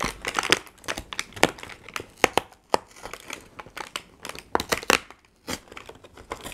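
Cardboard door of a cosmetics advent calendar being pried and torn open by hand: irregular crinkling with sharp crackles, a few standing out a little over two seconds in and again before the five-second mark.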